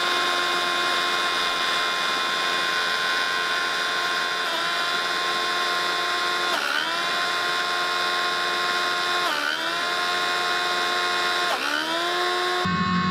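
Six 775 DC motors driving a 3D-printed gearbox and snowblower impeller, running with a steady high whine. The pitch sags and recovers four times as snow loads the impeller.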